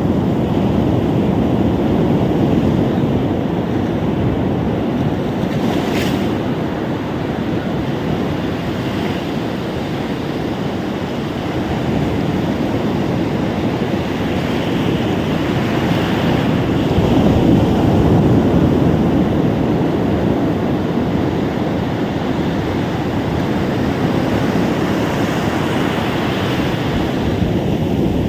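Surf washing onto a beach, a steady rush of water that swells and eases as waves come in. A brief click comes about six seconds in.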